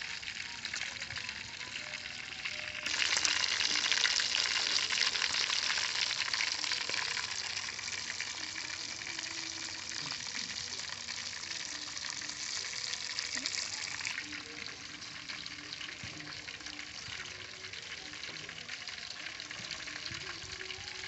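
Fish frying in hot oil in a wok: a steady sizzle with fine crackle, which grows louder about three seconds in and eases back after about fourteen seconds.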